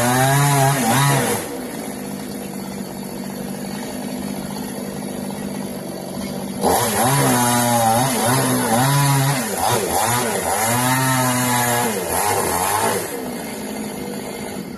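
Two-stroke chainsaw revving up briefly, idling for about five seconds, then running hard for about six seconds with its pitch dipping and recovering again and again before dropping back to idle.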